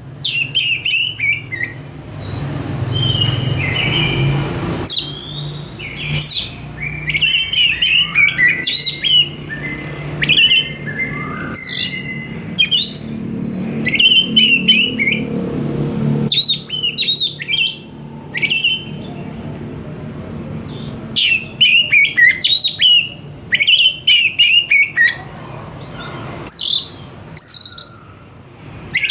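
Oriental magpie-robin (kacer) singing continuously, a rapid run of varied whistled and chattering phrases with brief pauses between them. A low hum sits under the song for about the first half.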